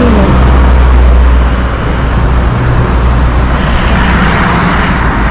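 Road traffic on a street: vehicles running and passing, with a steady low rumble underneath and a rising hiss of a vehicle going by near the end.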